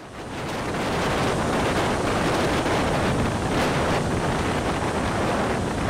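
Wind rushing past a microphone held out of a moving passenger train's window, over the steady rumble of the carriage running on the rails. It fades in over the first second, then holds steady.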